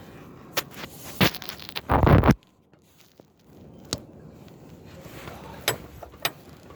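Close scraping and rustling with several sharp clicks, and one loud scrape about two seconds in that cuts off suddenly.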